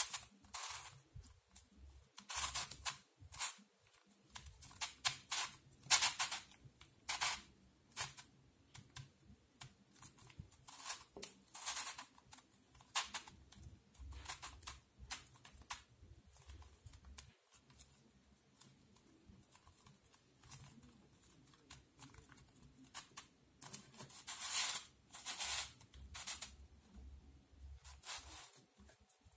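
Plastic pieces of Oskar Krystian's Cube, a curvy-cut twisty puzzle, clicking and scraping as its faces are turned by hand, in irregular bursts of quick clacks with a sparser stretch in the middle.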